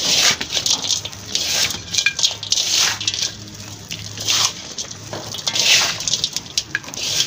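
Handfuls of potting mix (garden soil, cocopeat and sand) scooped up and let fall through the fingers into a galvanised metal tub as it is mixed: a gritty rustling pour that comes in several waves.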